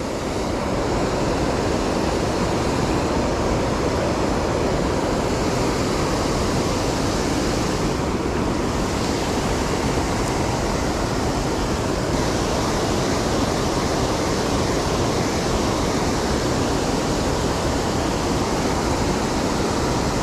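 Steady rushing of flowing creek water, an even hiss that holds at the same level throughout.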